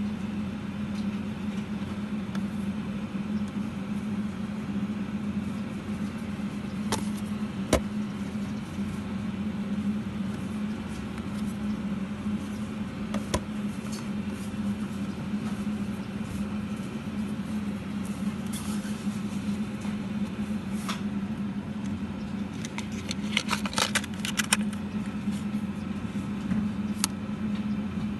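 A steady low hum with scattered sharp clicks and taps as paper-and-plastic eyelash boxes are handled and slid open, including a quick run of clicks near the end.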